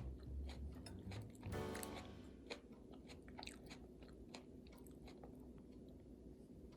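A person chewing and biting food close to the microphone, with small wet clicks and soft crunches; a few notes of light background music near the start.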